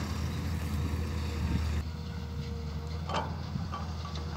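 Distant diesel engine of a loaded 8-ton dump truck driving away, a steady low rumble, with a few short higher sounds about three seconds in.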